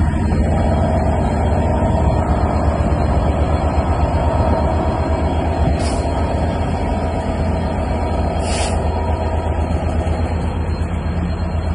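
EMD JT42CWR Class 66 diesel locomotive's two-stroke V12 working hard, a steady deep drone, as it hauls a heavy loaded coal train away. The hopper wagons roll past, and there are two brief high hisses about six and eight and a half seconds in.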